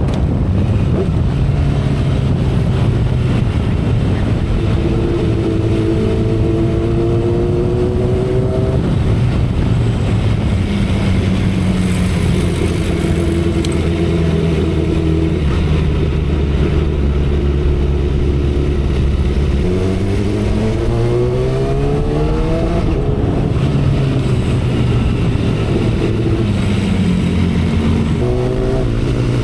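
2012 Kawasaki Ninja ZX-10R inline-four engine running under way at expressway speed, with wind and road noise. Its pitch rises and falls with the throttle, holds steady through the middle, then climbs sharply about two-thirds in; near the end it drops suddenly and climbs again.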